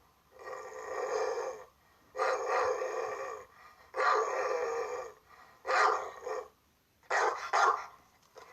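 Big dog barking and growling: three long drawn-out growls, then two quick runs of three short barks.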